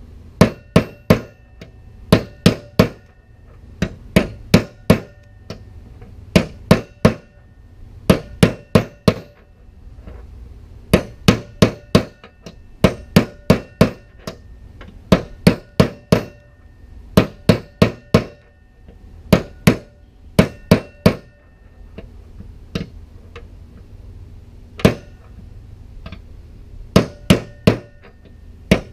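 Hammer blows on steel driving a worn bearing out of a Hustler Raptor SDX mower deck spindle housing, each blow ringing. They come in quick bursts of three or four, every couple of seconds, with one longer pause near the end.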